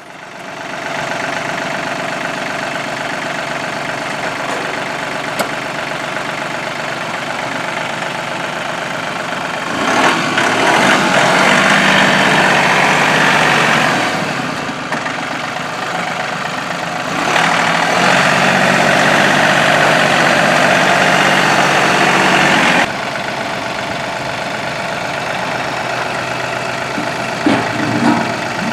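John Deere 3043D compact tractor's three-cylinder diesel engine starting and then running steadily. It grows louder twice for several seconds, about ten and eighteen seconds in, as the engine works the loader hydraulics to drop the attachment.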